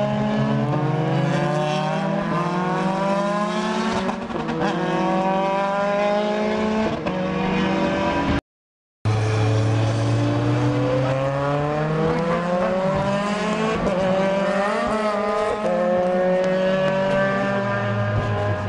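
Formula 3 racing car engines accelerating hard out of a chicane. The engine note climbs and drops back with each upshift, over and over. The sound cuts out for about half a second near the middle.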